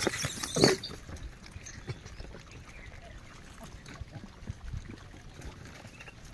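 Gray langurs feeding in a crowd on dry ground: a short, loud animal call in the first second, then faint scuffling and small ticks as they move and handle food.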